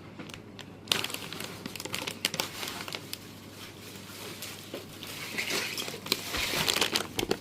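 Packaging crinkling and rustling as a graphics card is unboxed: scattered crackles start about a second in and grow denser near the end, over a steady low hum.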